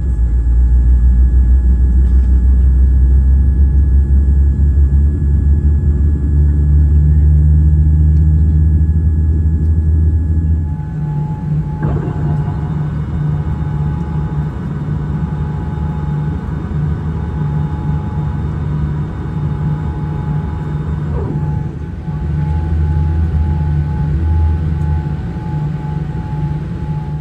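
Heavy low rumble inside the cabin of a Boeing 787-8 on the ground. About ten seconds in the rumble eases and a whine made of several steady tones, the flap drive extending the flaps, starts with a short glide in pitch, runs for about ten seconds and stops with another glide; the rumble swells again near the end.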